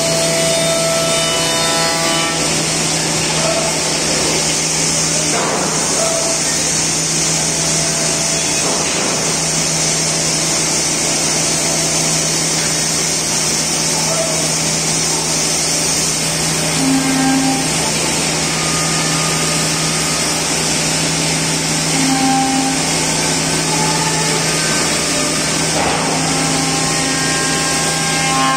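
Bacci Master five-axis CNC router spindle machining the edge of a wooden chair seat: a steady, loud cutting hiss over a constant low hum, with a few brief tones coming and going as the head moves.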